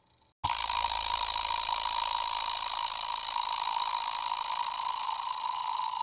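Bicycle chain running, a dense steady mechanical rattle that starts suddenly about half a second in and slowly eases off near the end.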